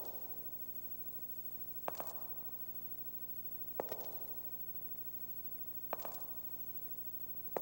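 Slow, regular footsteps on a bare stage floor, one heavy step about every two seconds, each a sharp double knock with a short echo. A steady low hum runs underneath.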